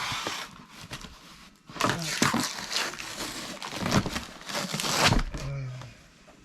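Unboxing packaging being handled: plastic wrapping crinkling and rustling, heaviest from about two seconds in to five seconds in.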